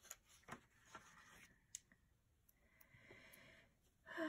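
Near silence: quiet room tone with a few faint, short clicks.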